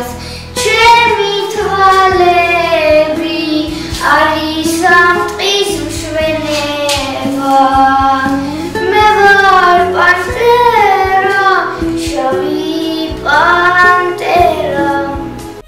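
A young girl singing over a backing music track, with held notes that glide up and down between phrases.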